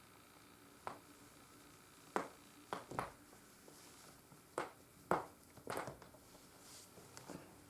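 A series of sharp joint cracks, the pops of a back or neck being cracked: about eight short pops at irregular intervals, some in quick pairs.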